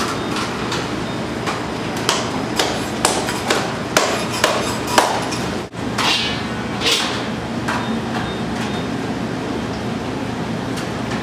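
Naan dough being slapped and patted out by hand: a quick series of sharp slaps, mostly from about one and a half to five seconds in, over a steady low hum.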